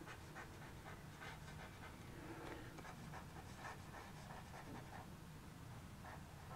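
Faint scratching of a stylus writing by hand on a drawing tablet, in short irregular strokes, over a low steady hum.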